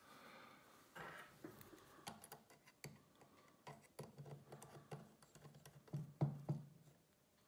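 Faint, irregular small metallic clicks and taps from tweezers and a watchmaker's screwdriver on a brass clock movement, as the anchor bridge screw is set in place and driven.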